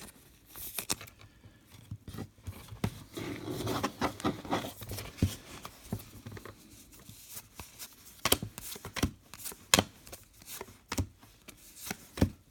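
Trading cards being handled and flipped through: sharp clicks as cards slide off one another and are set down, with soft rustling between.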